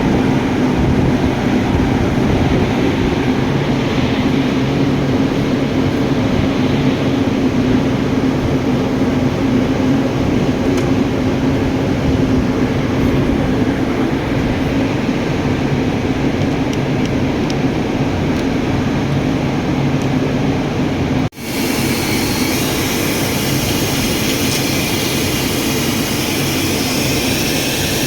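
Steady mechanical drone with a strong low hum. About 21 seconds in it breaks off for an instant and carries on brighter.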